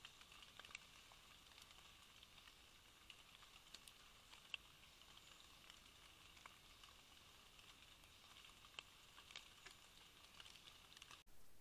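Near silence: a faint, steady high hiss with scattered soft ticks.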